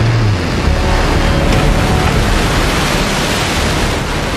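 Blue Origin New Shepard rocket lifting off, its BE-3 liquid-hydrogen engine giving a loud, steady rushing noise of rocket exhaust.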